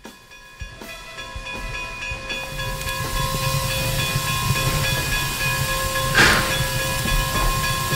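Steam train: a low rumble and steam hiss swelling in, with one sharp burst of released steam about six seconds in.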